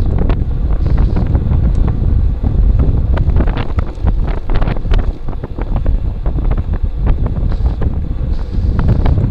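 Wind buffeting the microphone of a bike-mounted camera as a bicycle rides fast, a steady low rumble broken by frequent sharp clicks and knocks.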